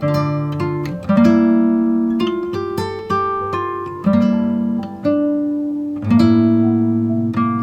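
Calm instrumental music of plucked strings: notes and chords struck about once a second, each left to ring and fade. No rain is heard.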